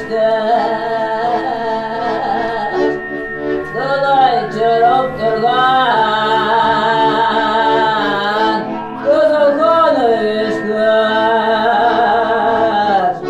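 A woman singing a slow, wavering folk-style melody over a steady held drone accompaniment, with short breaths between phrases about three and nine seconds in.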